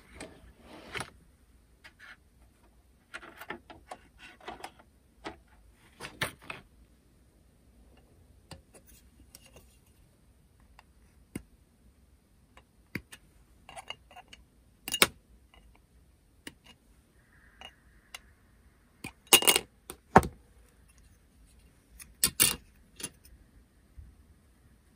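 Irregular light clicks, taps and small clatters of hobby tools and small plastic model parts being handled on a workbench, the loudest clicks in the second half.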